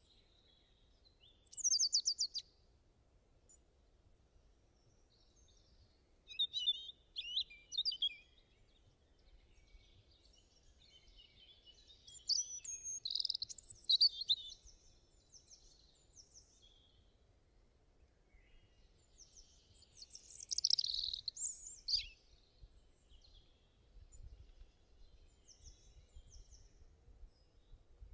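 Birds chirping and trilling in four short bouts, with quiet stretches between them.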